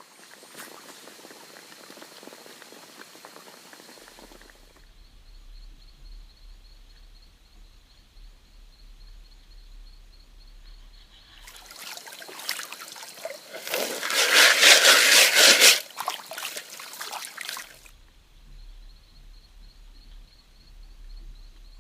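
Water boiling and bubbling in a metal canteen cup over a fire, with a louder rush of hissing and crackling for a few seconds in the middle.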